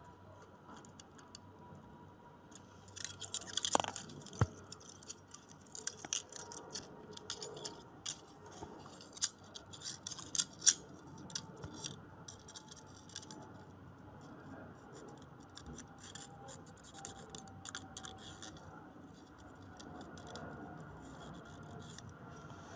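Feeler gauge blade slid and worked in the valve clearance gap between a rocker-arm adjuster and valve stem on a Honda CBR250R engine, checking the clearance: faint metallic scraping and small clicks, thickest about three seconds in, with a sharp click about eleven seconds in, fading out near the end.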